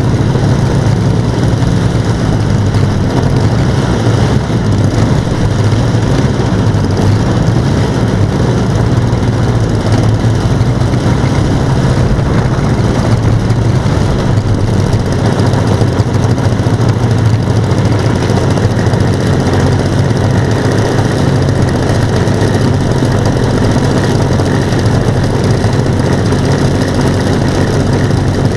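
Engines of a radio-controlled B-17G model aircraft running steadily at low throttle, a constant droning hum with no revving.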